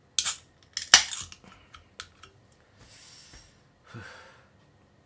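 A beer can opened by its pull tab: a first click, then the loudest sound about a second in, a sharp crack and hiss of escaping gas, followed by a few softer clicks and a short hiss.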